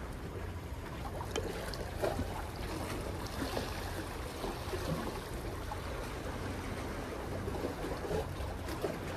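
Steady wash of sea water against the breakwater with wind rumbling on the microphone, and a few faint clicks and knocks mixed in.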